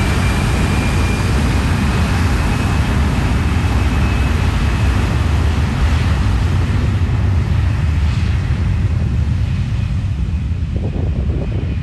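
Fokker 70 jetliner's two tail-mounted Rolls-Royce Tay turbofans at takeoff power as the jet rolls away down the runway: a loud, steady roar with a thin, high whine that rises slightly.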